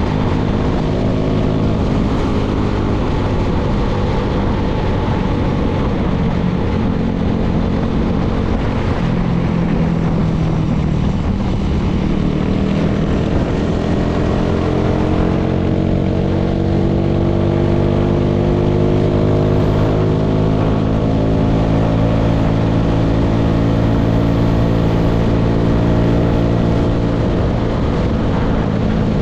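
Vehicle engine running under way, with a constant rush of noise. Its pitch eases down briefly, then climbs slowly through the second half as the engine speeds up, and settles near the end.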